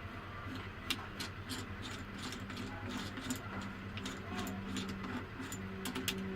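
Irregular sharp metallic clicks and clinks of tools and parts being worked on while a semi-automatic box strapping machine is taken apart, over a steady low hum.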